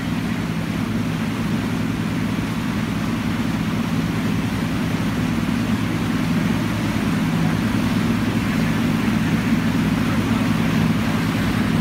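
Boat engine running steadily at speed, a low drone under the hiss of water rushing in the wake.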